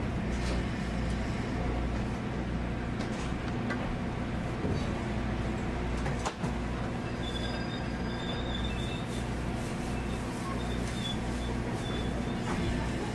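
Running noise inside a 50-series passenger coach on the move: a steady low rumble of wheels on the rails, with a faint thin squeal in the middle and a single sharp knock about six seconds in.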